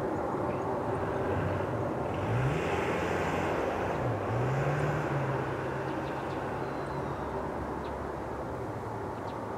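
Airbus A340-600's four Rolls-Royce Trent 500 jet engines running as the airliner rolls past: a steady rumble and rush. Under it a low hum rises about two seconds in, dips about four seconds in, then holds steady for a few seconds.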